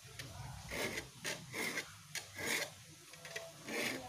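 Steel hand file drawn across the teeth of a wooden-handled hand saw in about five separate rasping strokes, sharpening the saw's teeth.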